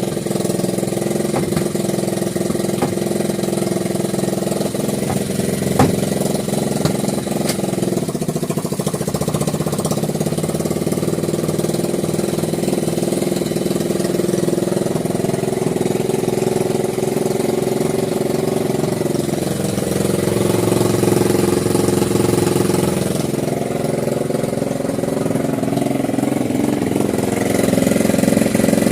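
Honda Supra 100cc single-cylinder four-stroke motorcycle engine, fitted in a Bajaj RE three-wheeler, running steadily. Its speed shifts around the twenty-second mark and rises near the end.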